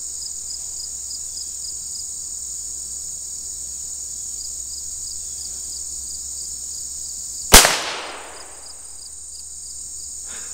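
A single .22 Long Rifle shot from a Ruger Standard pistol, sharp and loud, about three-quarters of the way through, then fading quickly. Underneath, a steady high insect sound pulses about three times a second.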